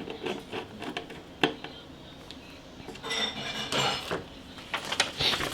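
Small metal hardware being handled and set down: scattered light clicks and clinks, with a sharper click about one and a half seconds in and a busier cluster of clinks in the second half.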